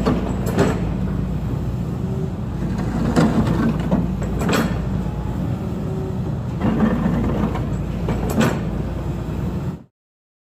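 Volvo wheeled excavator's diesel engine running steadily under work, with several sharp metallic clanks from the boom and bucket as it swings and moves. The sound cuts off suddenly near the end.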